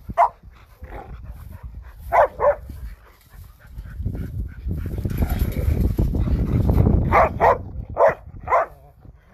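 Dogs barking in short, sharp barks, mostly in pairs: one at the start, two about two seconds in, and four more in the last two seconds. In between, a low rumble on the microphone swells for a few seconds.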